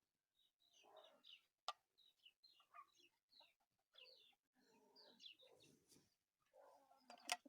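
Faint, repeated peeping of a young bird chick that is chilled and unwell, with two sharp clicks, the louder one near the end.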